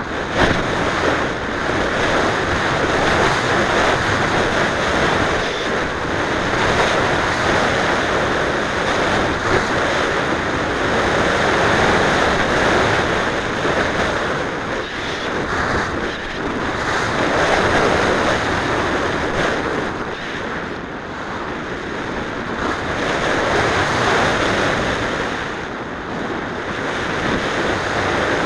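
Air rushing over the microphone of a small onboard keychain camera on a Mijet slope-soaring glider in flight: loud, steady wind noise that swells and eases several times, with no motor.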